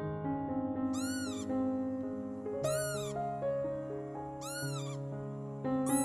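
Background piano-like music with a high, meow-like animal call that rises and falls, repeated four times about two seconds apart.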